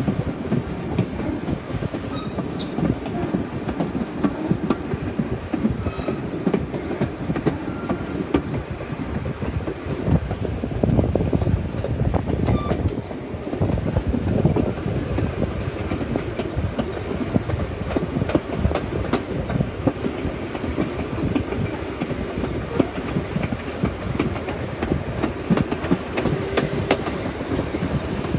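A steam-hauled heritage train's wooden passenger carriages running along the line: a steady low rumble with the wheels clicking over rail joints.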